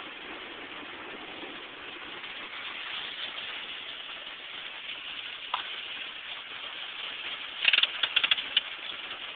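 Heavy rain falling steadily on a Ford Ranger pickup's cab, heard from inside as an even hiss. Near the end there is a quick cluster of clicks and rattles, the loudest sound here.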